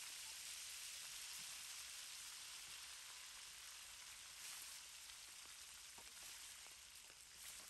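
Shrimp frying in hot oil in a wok, a faint, steady sizzle.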